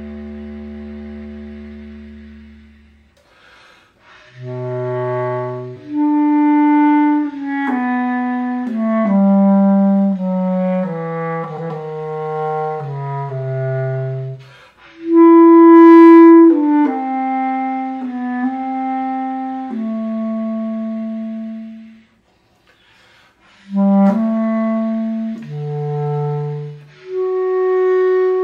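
Solo bass clarinet playing a slow sarabande, a melody of held and stepping notes in phrases. It falls silent for a breath about three seconds in and again near the end before the next phrase.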